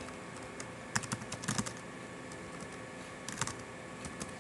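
Typing on a computer keyboard in short bursts of keystrokes, about a second in, again just after three seconds and near the end: an administrator's name and password being entered.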